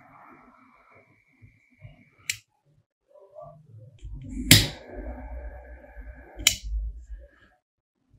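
Restored metal lighter worked twice: a thin steady whistle for about two seconds ending in a sharp metallic click, then another click, whistle and click about two seconds later, with low rumbling under the second one.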